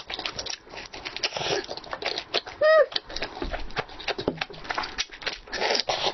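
Close-miked chewing and wet mouth clicks of a person eating sauced seafood. About two and a half seconds in comes one short, high vocal 'mm', the loudest moment.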